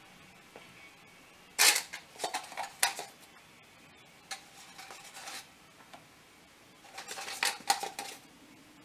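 Clicking and clattering from paint supplies being handled, in three short bursts, the first the loudest.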